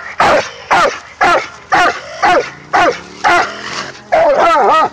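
Coonhound barking in a steady chop, about two barks a second, then one longer, wavering bawl near the end.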